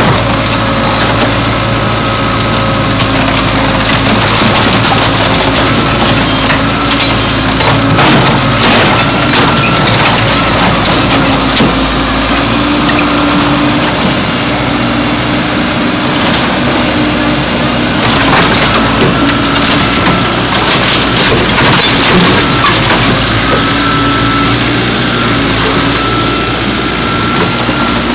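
A backhoe's engine running under load while its bucket crushes a car body, with a dense run of sharp cracking and crunching as the metal and glass give way. The engine's pitch shifts now and then as the hydraulics work.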